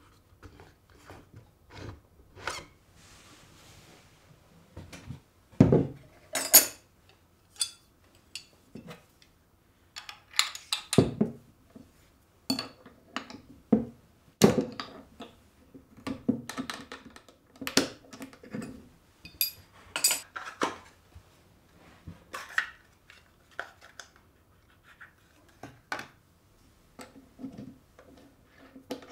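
Irregular metallic clicks, clinks and knocks as a Makita cordless trim router is handled and its bit changed with wrenches on the collet nut. The sharpest knocks come about six and eleven seconds in.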